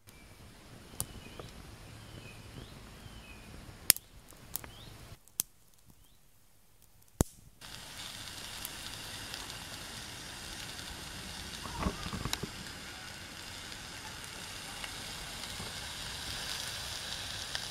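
Twigs burning in a small perforated steel hobo stove, with a few sharp cracks and snaps over the first seven seconds. Then, from about eight seconds in, a steady sizzle of sausages frying in a pan on the stove, with a brief clatter near the middle.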